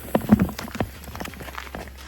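Firework crackling: a quick, uneven run of sharp pops, the loudest about a third of a second in, fading into smaller crackles.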